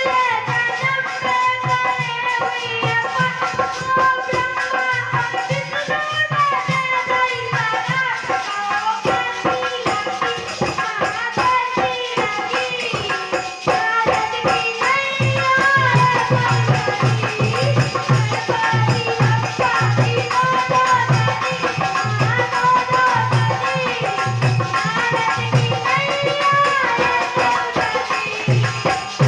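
A young girl singing an Indian song in a wavering, ornamented melody, over a steady hand-drum beat and shaken percussion. The drum beat grows louder about halfway through.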